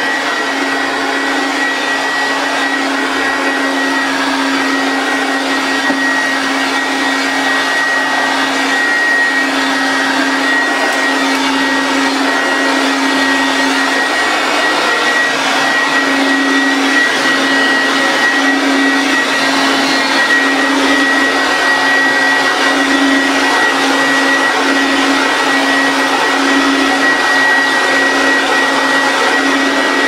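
A 1990s Goblin Laser 2500 Plus upright vacuum cleaner running while it is pushed over carpet: a steady rush of air under a steady high motor whine and a lower hum, growing slightly louder over the stretch.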